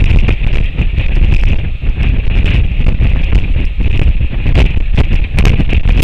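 Strong wind buffeting the microphone: a loud, continuous low rumble with rapid flutters and gusts, over a steady hiss.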